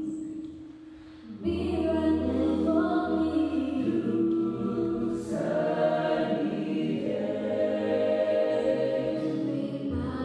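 Mixed-voice a cappella group singing close harmony. It is softer for the first second or so, then fuller from about a second and a half in, when a low bass voice enters beneath the chords.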